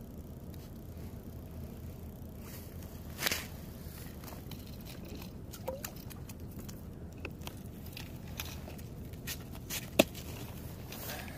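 Close handling noise from a winter jacket sleeve brushing over the camera, with a few sharp knocks and clicks, the loudest about ten seconds in, over a steady low rumble.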